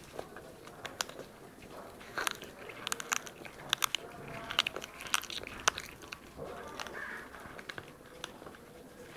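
A cat crunching and chewing raw chicken feet, the small bones cracking in a quick run of sharp crunches through the middle, with a single crack about a second in.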